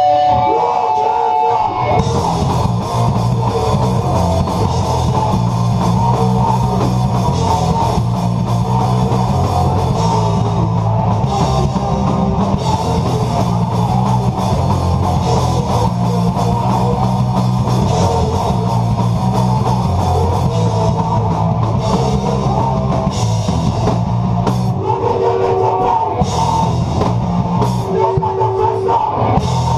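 Hardcore metal band playing live: heavy electric guitars and bass over a drum kit with crashing cymbals. Held ringing guitar notes give way to the full band crashing in about two seconds in.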